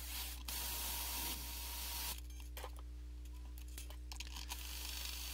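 DeWalt cordless screwdriver with a string-winder bit spinning a Telecaster's tuning pegs to unwind the strings. It runs in two spells, a steady whir, stopping for about two seconds in between.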